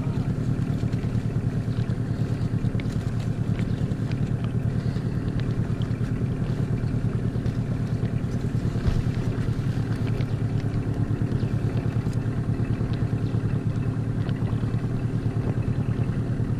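Small outboard motor on an inflatable dinghy running steadily, with a fast even pulse.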